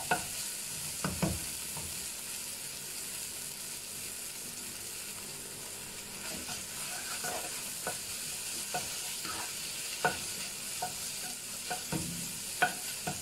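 A spatula stirring and scraping scrambled egg, carrot and leek around a nonstick wok over low heat, with a steady quiet sizzle of frying underneath. Short scrapes and knocks of the spatula come irregularly, more often in the second half.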